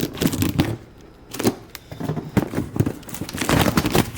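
Rummaging through a box of engine parts: rustling packaging with irregular light knocks and clatter.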